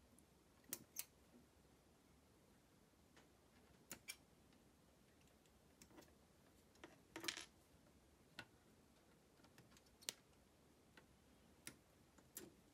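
Faint, scattered clicks and snaps of hard plastic model-kit parts being handled and fitted, some in quick pairs, with a louder cluster about seven seconds in.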